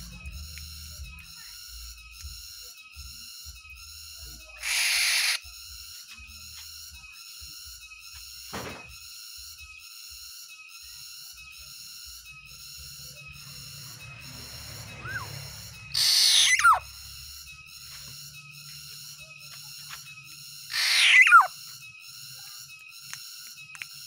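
Caged black-naped oriole giving three loud, harsh rasping calls, the last two ending in falling whistles, spaced several seconds apart. A faint regular pulsing runs underneath, about two pulses a second.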